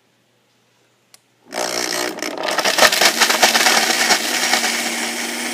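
A short click, then a Vitamix blender starts about a second and a half in, grinding chunks of Parmesan cheese: the motor runs loud and steady while the hard pieces rattle against the jar.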